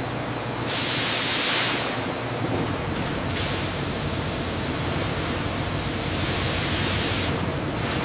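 Steady hissing noise, like machine or spray ambience. Its tone changes abruptly about a second in, again around three seconds in, and near the end.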